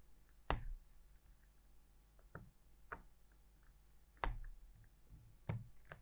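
Sharp clicks and taps of a flat screwdriver's tip against a laptop's plastic bottom case while rubber screw covers are pried out. There are three loud clicks: about half a second in, just past four seconds, and near the end. A few fainter taps fall between them.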